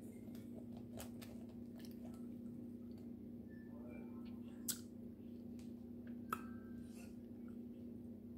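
Crab shells being picked apart by hand: scattered small cracks and clicks, two sharper snaps near the middle, over a steady low hum.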